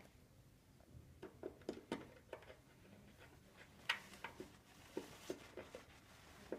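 Faint scattered clicks and light taps of a screwdriver working at a main earthing terminal block, the sharpest about 4 seconds in, over low room tone.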